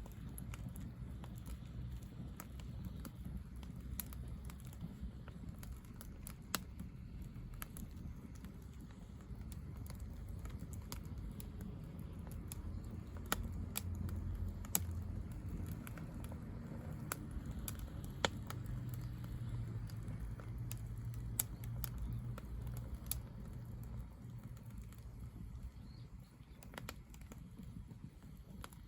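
Firewood burning in a fire pit, crackling with scattered sharp pops over a low steady rumble.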